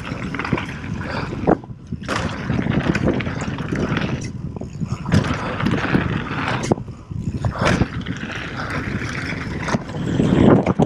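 Mountain bike riding fast over a loose gravel and dirt trail: tyres rolling and crunching, the bike knocking and rattling over bumps, and wind buffeting the camera microphone. The noise drops away briefly about three times.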